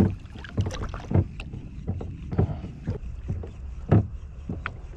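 Small waves lapping and slapping against a kayak hull in irregular splashes, with wind rumbling on the microphone.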